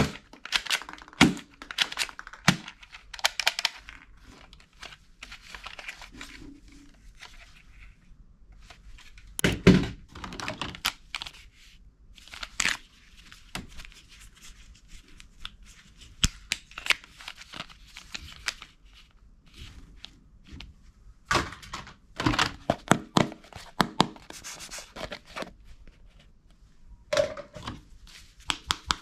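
Plastic toy guns being handled and rummaged in a cardboard box: irregular clicks, knocks and rattles of hard plastic, with a louder knock about ten seconds in.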